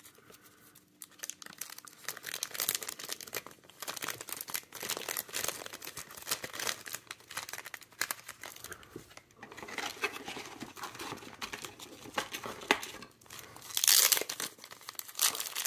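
Thin clear plastic bag crinkling as a stack of trading cards is worked out of it and handled, in irregular crackles with a louder burst near the end.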